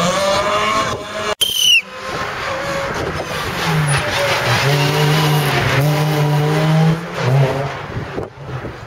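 Rally car engines at full throttle, the revs rising, then an abrupt cut about a second and a half in followed by a brief high tyre squeal. A Ford Fiesta rally car's engine then pulls hard past, its pitch dipping and rising a couple of times before dying away near the end.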